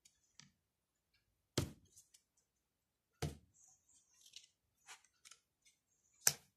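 Tarot cards being drawn and laid down on a wooden table: three sharp taps, the last near the end, with soft sliding and rustling of cards between them.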